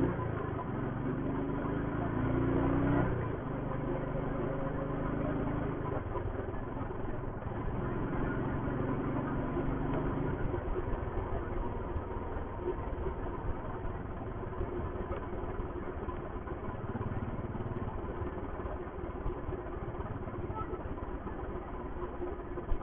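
Royal Enfield Thunderbird's single-cylinder engine and exhaust heard from the saddle while riding. The engine note climbs under throttle for the first few seconds, drops about three seconds in, and then runs steadily. From about halfway through it sits lower under wind and road noise, and there is a sharp click near the end.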